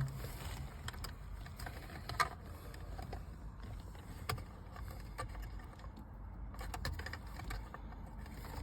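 A few faint, scattered clicks and taps of a screwdriver and small screws being handled in a car's plastic centre console, over a low background rumble.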